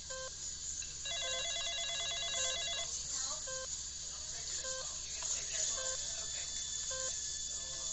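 Hospital-room sound-effect ambience: a short electronic monitor beep repeating about once a second. About a second in, a rapidly pulsing electronic tone joins it for roughly two seconds.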